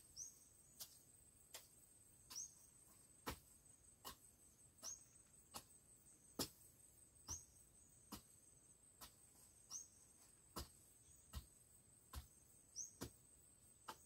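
Soft, evenly paced thuds of a hoe chopping into garden soil, a little more than one stroke a second. Under them runs a steady high insect drone, with a short falling chirp repeating every couple of seconds.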